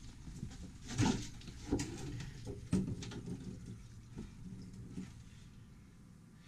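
Knocks and scrapes of a greasy metal pan being worked loose and lifted out of a boat's bilge, with three sharper knocks about one, two and three seconds in and handling noise fading toward the end.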